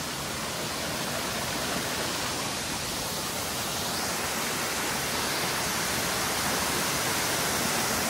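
Steady rush of a waterfall's falling water, growing a little louder over the seconds.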